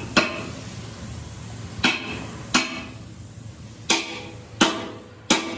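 A hammer striking metal: six sharp, ringing blows, mostly in pairs about 0.7 s apart.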